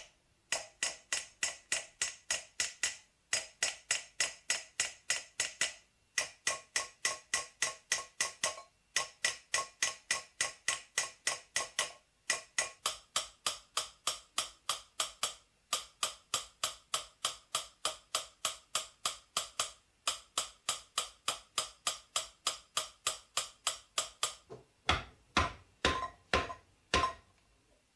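Small hammer tapping a silver vessel held over an iron stake: quick, even strikes of about four a second, each ringing briefly, in runs of a few seconds broken by short pauses. This is finishing hammering to smooth the vessel's surface. A few louder, spaced-out strikes come near the end.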